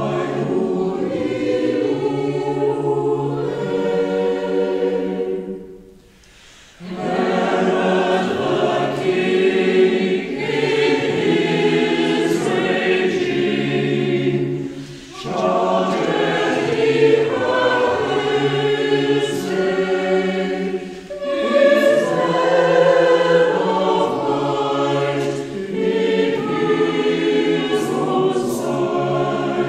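Mixed church choir singing a carol in sustained phrases, with short breath pauses between them and a longer break about six seconds in.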